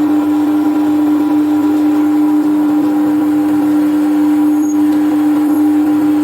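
Angle grinder motor running steadily at full speed, a constant whine that holds one pitch without change.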